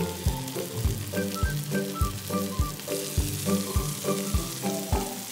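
Marinated chicken pieces sizzling steadily as they shallow-fry in hot coconut oil in a nonstick pan. Background music with a steady beat plays over the sizzle.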